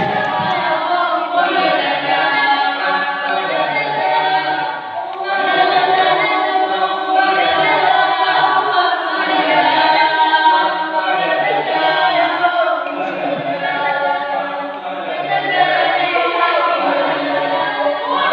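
A group of voices singing an unaccompanied traditional Dusun chant (gonding), several voices held on long notes over a lower line that moves in short steps.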